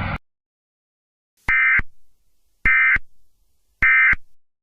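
Emergency Alert System end-of-message data tones: three short bursts of digital warbling, a little over a second apart, marking the end of the alert.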